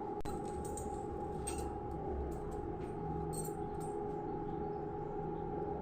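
Steady electrical hum of an induction cooktop heating a pan of tomatoes, with a few faint clicks and rustles.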